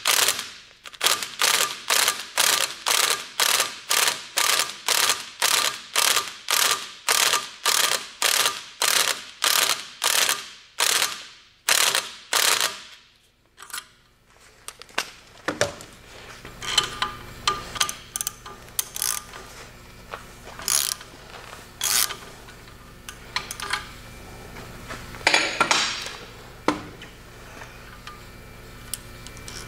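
Cordless impact wrench hammering a pin-drive socket in short bursts, about two a second, to break loose the threaded end cap of a BMW VANOS drive assembly clamped in a vise. It stops about 13 seconds in, followed by scattered light metallic clicks as the loosened parts are handled.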